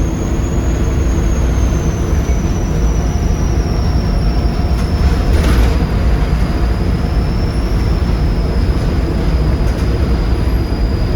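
Volvo D7C 7.3-litre diesel engine of a Volvo B7RLE bus running with a steady low drone, its turbocharger giving a thin high whistle that drifts slowly lower in pitch. A brief rattle comes about five and a half seconds in.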